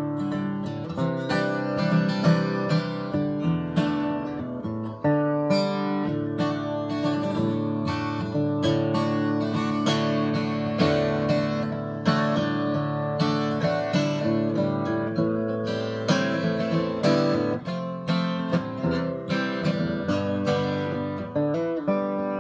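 Acoustic guitar being strummed, a continuous run of ringing chords at a steady pace.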